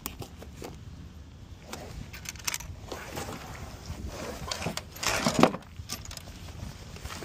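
Cardboard box being opened by hand: scattered scrapes, crinkles and taps of cardboard and packing, with a louder scraping rustle about five seconds in as the flap is pulled back.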